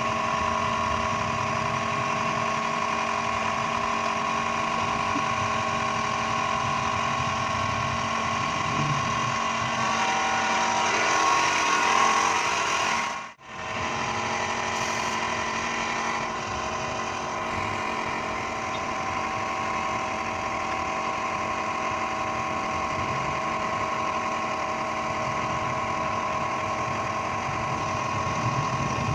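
A motor running steadily with a constant hum and rumble, cut off for an instant about halfway through.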